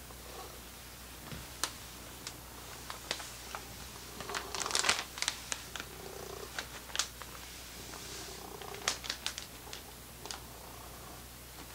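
A domestic cat purring in short spells while it begs for dried bonito flakes. Scattered sharp clicks run through, with a loud crinkling of a plastic snack bag about five seconds in.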